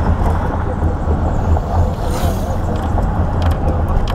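Steady road noise inside a moving car's cabin: a continuous low rumble of engine and tyres on the road.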